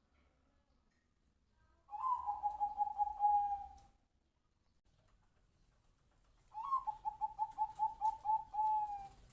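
Zebra dove (perkutut, Bangkok song type) cooing: two rolling song phrases, each a quick run of short beaded notes on one pitch, the second longer, coming about two and a half seconds after the first.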